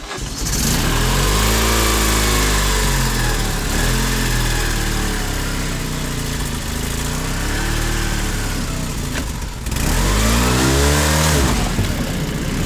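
Off-road vehicle engine driving along a snowy track, its revs rising and falling several times, with a brief drop about ten seconds in followed by a quick climb in revs. A steady hiss of wind and rolling noise runs under it.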